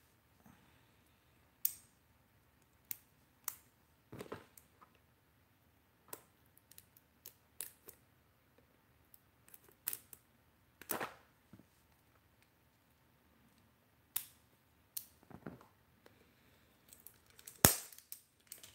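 Sharp snips and clicks of a multitool's small scissors cutting the plastic wrap on a box, a dozen or so spaced out with pauses between, the loudest near the end.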